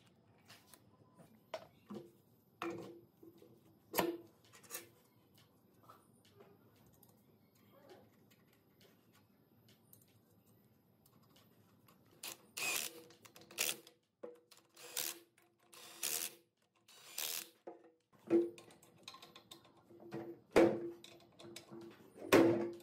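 Hand tools working on metal engine parts. Scattered light clicks and knocks come first. From about halfway there is a run of short rasping strokes, roughly one a second, and the knocks draw a brief metallic ring.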